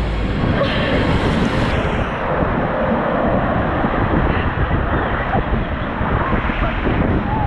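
Steady rush of water and wind noise on the microphone of a camera riding a raft tube down an enclosed water slide.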